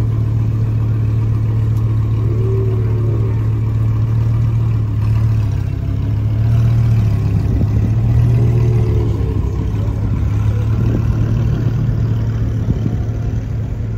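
Lamborghini Huracán's V10 engine running at a steady low idle, then moving off slowly at low revs without a hard rev.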